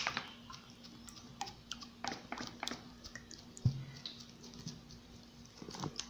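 Faint scattered clicks and ticks as liquid dish detergent is poured from a squeezed plastic bottle into a glass bowl of liquid, with one duller knock a little past halfway, over a faint steady hum.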